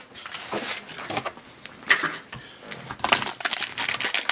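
Hands handling and opening a plastic blind-bag toy pack: scattered plastic clicks and rustles, turning into a denser run of crackling and clicking about three seconds in as the plastic bar-shaped case is pried apart.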